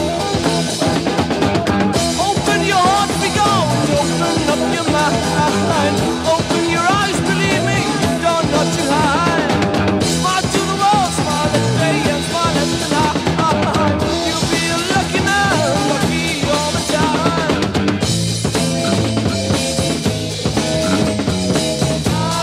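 Early-1970s German rock single playing: a drum kit keeps a steady beat under a wavering lead melody line.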